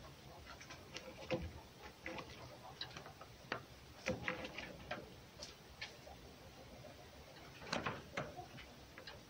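Faint, irregular soft clicks and rustling as a red fox nibble-grooms a ginger cat's neck fur with its teeth.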